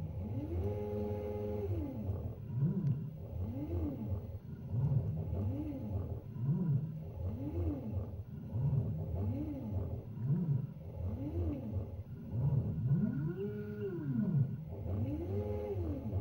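Stepper motors driving the lathe's Z and X ball screws under a GRBL controller, whining up and down in pitch as each move speeds up and slows down, about one move a second as the tool takes repeated passes. Two longer, higher moves come near the end, over a steady low hum.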